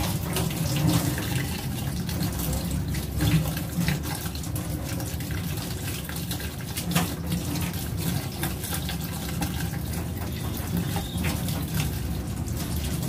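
Kitchen tap running steadily into a stainless-steel sink as a bunch of celery is rinsed under the stream, with a few brief clicks and splashes.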